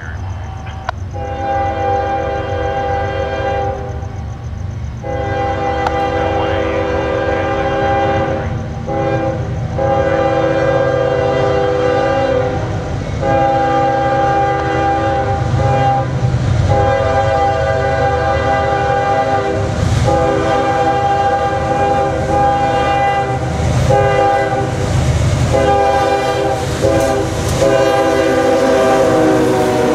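CSX freight locomotive's multi-chime air horn blowing a series of long blasts with short breaks, as for a grade crossing, while the train approaches. The rumble of the engines and wheels grows as the locomotives come past near the end.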